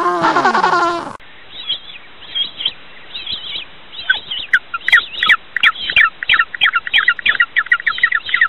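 A penguin's call with a bending pitch runs for about a second and then cuts off abruptly. After it, bird chirps come in, high and short: a few at first, then rapid and dense from about four seconds in.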